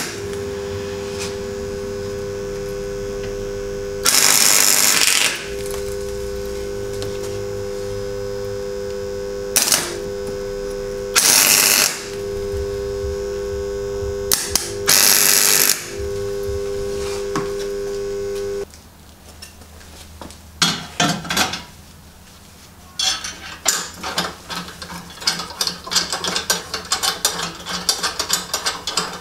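MIG welder laying short tack welds: about five bursts of arc noise over the welding machine's steady hum, the longest just over a second. The hum stops about two-thirds of the way through, and quick metallic clinks and scrapes of steel parts being handled follow.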